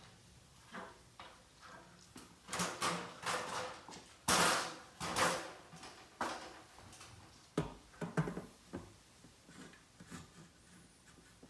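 Irregular knocks and short scrapes of a level and pencil handled against a drywall wall while lines are marked, loudest about four to five seconds in.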